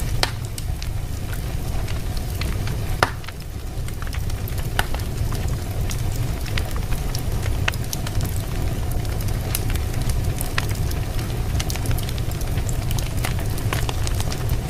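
Wood fire burning in a fireplace: a steady low rumble of flame with frequent crackles and pops, one louder pop about three seconds in.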